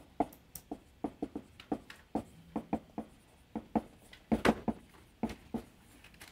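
Dry-erase marker writing on a whiteboard: a quick, irregular run of short taps and strokes as an equation is written out, loudest a little past the middle.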